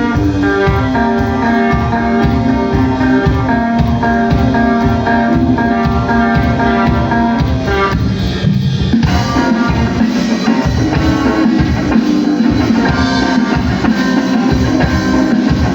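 Live rock band playing an instrumental passage: guitar lines over a steady drum-kit beat. The parts change about eight seconds in.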